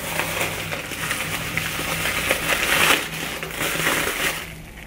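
Packaging crinkling and rustling as hands dig through a parcel of cosmetics; it dies away shortly before the end.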